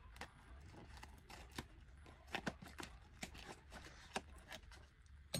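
Faint, irregular clicks and rustles of a taped package being opened and handled, busiest in the middle, with a sharper click near the end.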